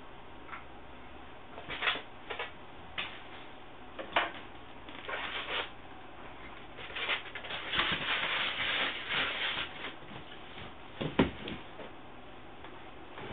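Protein skimmer parts being handled during assembly: scattered clicks and knocks, with a few seconds of rubbing and rustling in the middle.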